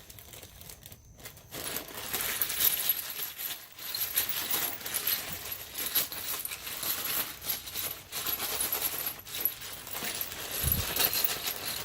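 Cleaned steel nuts and bolts clinking and rattling together in a bag as it is shaken to coat them in motor oil against rust, with a dull thump near the end.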